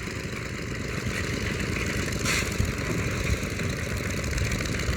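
A steady low rumble like an engine running at idle, with a brief hiss about two seconds in.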